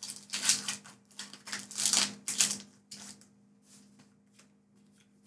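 Foil Pokémon booster pack wrapper crinkling as it is torn open, a dense run of rustles for about three seconds, then a few faint rustles and clicks as the cards are handled. A faint steady hum runs underneath.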